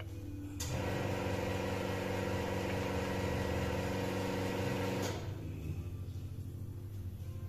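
A café coffee machine's motor runs for about four and a half seconds, a steady buzzing hum with a hiss, starting and stopping abruptly.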